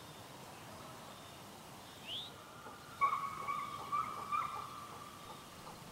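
Deer hounds baying on a drive, one long drawn-out cry starting about three seconds in. A single short rising bird chirp comes just before it.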